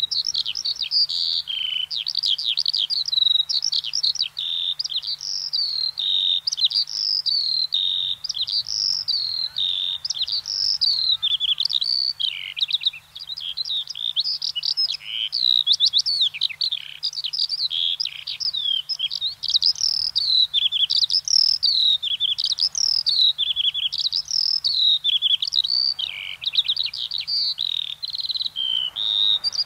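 Skylark singing: one unbroken stream of rapid, high warbling and trilling phrases that rise and fall without a pause.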